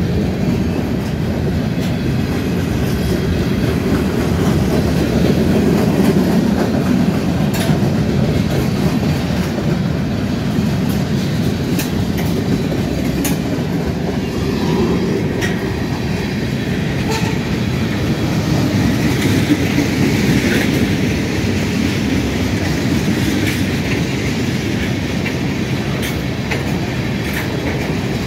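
Manifest freight train of tank cars rolling past close by: a steady rumble of steel wheels on the rails, with scattered sharp clicks as the wheels cross rail joints.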